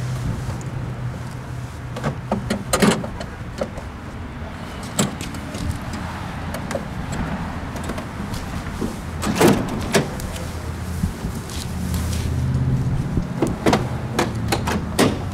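Hard plastic luggage of a Honda GL1500SE Goldwing being handled: the top case and saddlebag lids and latches opened and shut in scattered clicks and knocks, the loudest pair about halfway through. A steady low rumble runs underneath.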